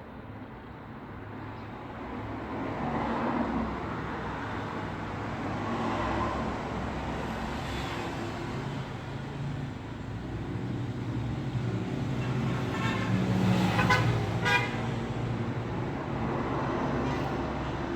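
Road traffic: cars passing one after another, the rumble swelling and fading. About three-quarters of the way through, a louder vehicle passes with a short horn toot.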